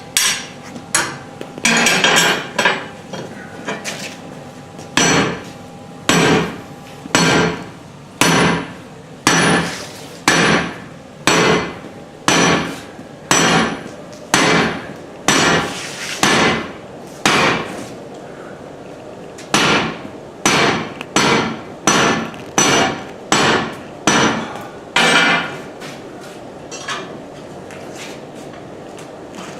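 Hammer blows on stainless steel being forged, a steady run of sharp metallic strikes about one and a half a second. There are two short pauses, and the strikes end a few seconds before the close.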